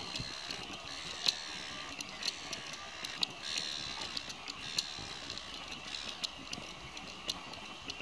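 Footsteps clicking on a boardwalk at an uneven walking pace, about two a second, with faint high bird twittering behind.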